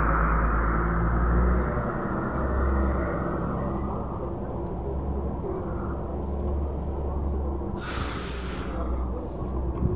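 Belkommunmash BKM 321 trolleybus pulling in to the stop over a steady low rumble of street traffic, then a sharp hiss of compressed air from its air brakes about eight seconds in, lasting over a second as it halts.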